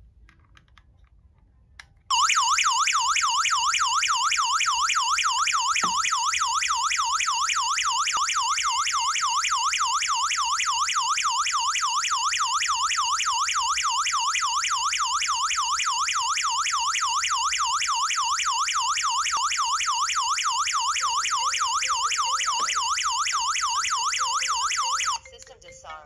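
HOMSECUR LD02-4G alarm panel's siren sounding a loud, rapid electronic warble: the burglar alarm going off after the armed system's PIR motion sensor is triggered. It starts suddenly and cuts off abruptly near the end as the system is disarmed from the remote control.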